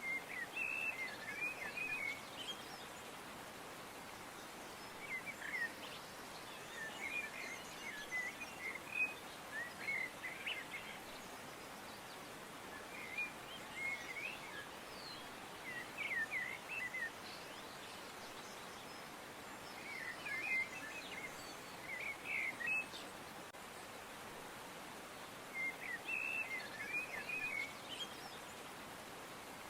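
Birds chirping in bursts of short, quick notes every few seconds over a steady hiss of outdoor background noise.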